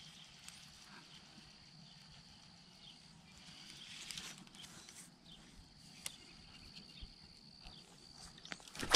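Faint outdoor ambience beside a pond: a steady high thin whine that drops out for a couple of seconds midway, a few light clicks, and a loud knock right at the end.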